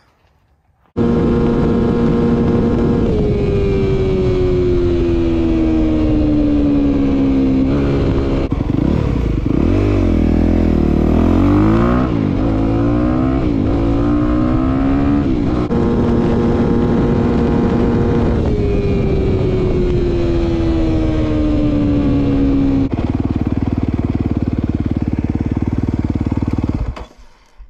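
2023 Honda CRF250R dirt bike's single-cylinder four-stroke engine running hard at high revs during a flat-out top-speed run. The engine note slides down in pitch twice, with a rougher, wavering stretch in the middle, and it cuts off suddenly near the end.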